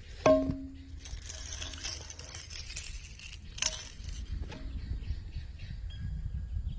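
A sharp metallic clink that rings briefly, about a quarter second in, then a second, lighter ringing clink about three and a half seconds in, over a low rumble.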